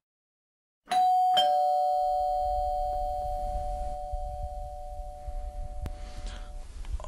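Two-tone doorbell chime: a descending 'ding-dong' that strikes twice about half a second apart, a higher note then a lower one, both ringing out and fading over several seconds.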